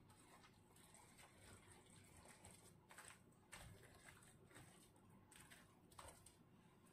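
Near silence, with a few faint, soft dabs as a chopped onion-tomato topping is spread by hand over raw fish.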